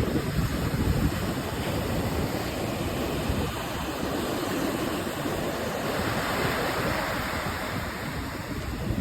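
Steady wash of ocean surf, with wind gusting on the microphone.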